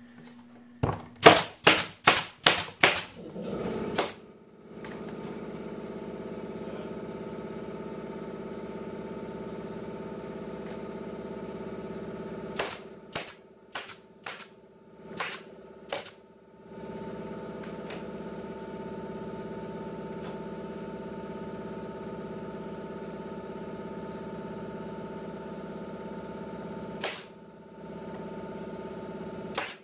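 Pneumatic nail gun shooting fasteners into the wooden rim of a beehive cover: a quick run of about seven shots a second or so in, then a few scattered shots around halfway and near the end. A steady machine hum fills the gaps between the shots.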